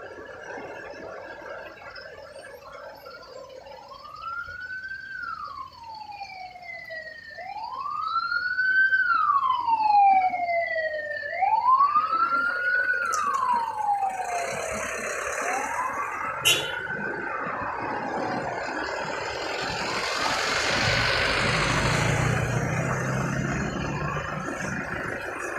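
Vehicle siren wailing, the pitch rising quickly then sliding down in cycles of about four seconds, with a second, higher wail overlapping for a few cycles. In the second half a heavy truck's engine rumble and road noise swell as it passes close by, partly covering the siren.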